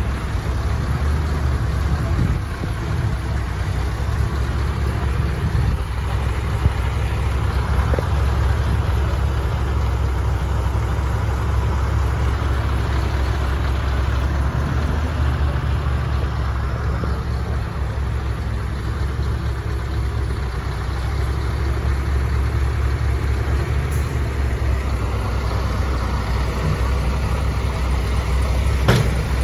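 Scania R730 heavy-haulage tractor unit's V8 diesel engine running steadily and deep as the truck pulls a heavy trailer load slowly forward.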